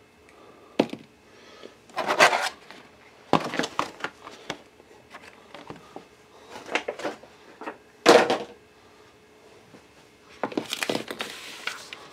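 A white plastic packaging tray and microphone accessories handled and set down on a wooden desk: irregular clatters, knocks and rustles, the loudest about two seconds in and again about eight seconds in, and a longer run of rustling clatter near the end.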